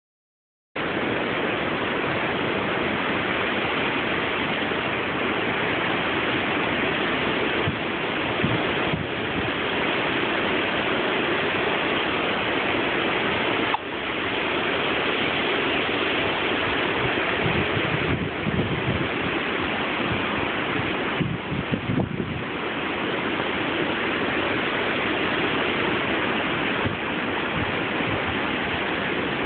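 Hurricane wind and rain making a steady, dense rushing noise, with a few short dips and gusty bumps in level.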